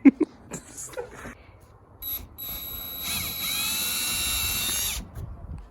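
A sharp click, then an electric drill's motor whines for about three seconds, getting louder and faster about a second after it starts, before stopping abruptly.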